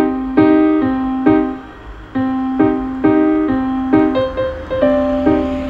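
Background music: a piano playing single notes, about two a second, each ringing on until the next, with a brief pause about two seconds in.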